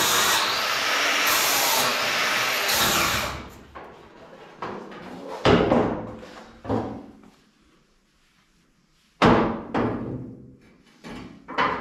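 Grinder with a blending disc running against steel, taking rust off down to bare metal so it can be welded, then stopping about three seconds in. After that come several separate sharp knocks and clunks.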